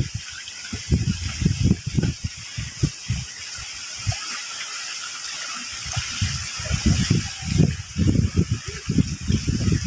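Steady rush of shallow sea water against a rocky mangrove shore, with irregular low thumps beneath it that thin out in the middle and grow busier again in the second half.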